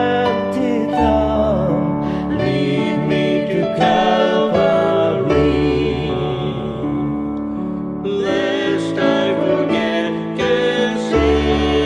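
Karaoke performance of a gospel hymn: voices singing over a recorded backing track, with a thinner passage in the middle before the accompaniment fills out again.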